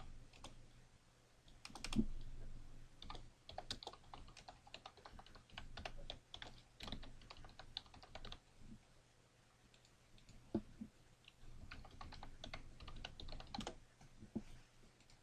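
Typing on a computer keyboard: irregular runs of keystrokes entering login details, with a louder knock about two seconds in.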